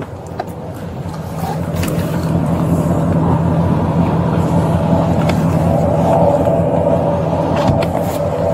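A motor vehicle's engine running steadily, growing louder about a second and a half in, with a few light clicks over it.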